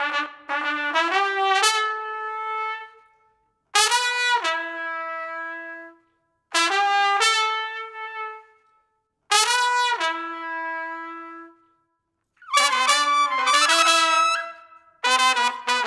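An all-plastic trumpet played in short phrases. First comes a quick rising run of notes, then four short phrases, each starting high and settling on a held lower note, with silent gaps between them. The player finds its tone loud but lacking clarity, with the air seeming to lag.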